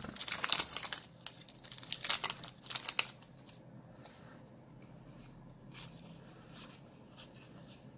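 Foil Yu-Gi-Oh booster pack being torn open, crinkling and tearing in quick bursts for about three seconds. After that the cards are handled quietly, with a few faint clicks.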